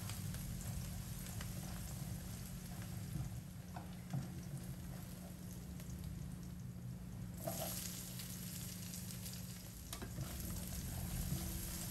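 Minced garlic sizzling in oil in a stainless steel wok, with the light scrape and tap of a spatula stirring it, over a steady low hum. About seven seconds in, sliced onion goes into the pan and the sizzle turns suddenly louder and hissier.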